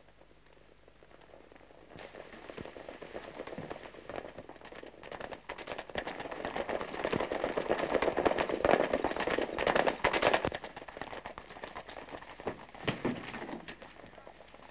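Hoofbeats of horses at a gallop, coming closer and growing louder to a peak about eight to ten seconds in, then dropping back.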